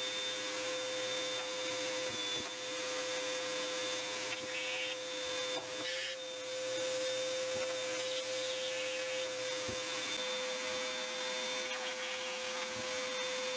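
Small shop vacuum running steadily with a high whine, sucking built-up lint out of a clothes dryer's blower motor.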